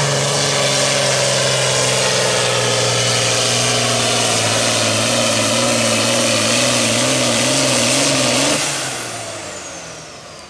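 Valtra 8550 pulling tractor's diesel engine running loud and steady under full load as it drags a weight-transfer sled, its pitch wavering in the later seconds. About eight and a half seconds in it drops away sharply with a falling whine as the engine is backed off at the end of the pull.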